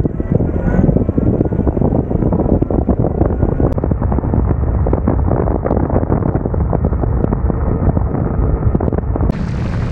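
Heavy wind buffeting on the microphone of an e-bike riding at about 30 mph, heard as a loud, gusting low rumble.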